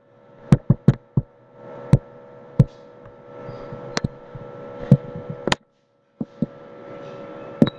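Computer mouse clicking about ten times at uneven intervals, over a steady low hum in the room.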